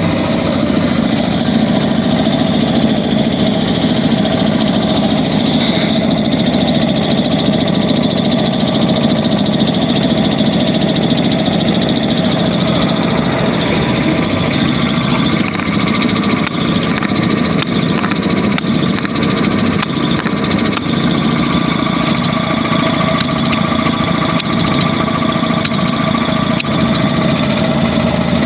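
3 HP air compressor with a Puma 3065 piston pump running steadily under test, a rapid even pulsing over a mechanical drone. A faint high hiss drops away about six seconds in.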